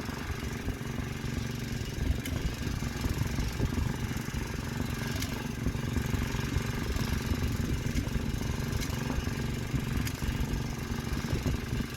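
The engine of a 12 hp MTD Snowflite snowblower running steadily with a fast, even pulse, on a test run after a new auger belt was fitted.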